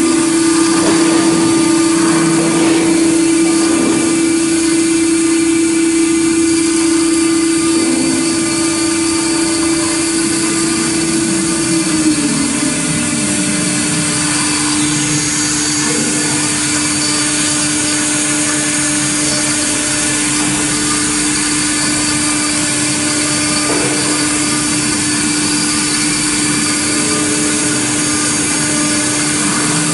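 CNC router spindle running with a steady whine while its cutter mills aluminium, over a hiss of cutting noise. A little under halfway through there is a brief louder moment and the whine drops slightly in pitch, then holds steady.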